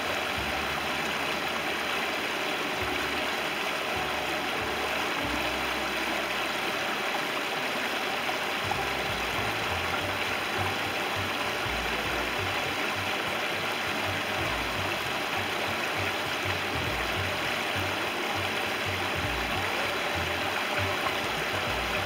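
Small forest creek rushing steadily over a low rock ledge, a continuous even splashing, with an uneven low rumble underneath.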